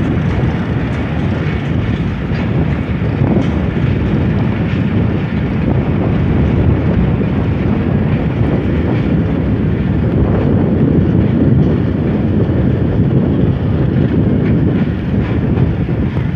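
Passenger train coaches rolling steadily past, a loud continuous rumble of wheels on rail with occasional clicks.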